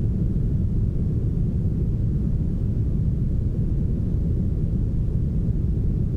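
Smoothed brown noise: a steady, deep hiss with its weight low down and almost no treble, unchanging in level.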